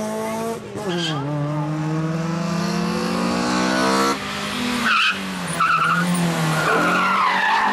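Rally car engines at full throttle: one engine drops in pitch about a second in as the driver lifts, then climbs steadily as the car accelerates hard. After a cut, another car passes through the corner with its engine revving and a tyre squeal near the end.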